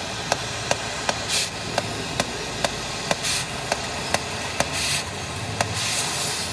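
Gas cutting torch hissing steadily as it cuts the sheet metal of a truck's wheel arch, with a few short, louder blasts of hiss. Sharp regular knocks, about two to three a second, run through it.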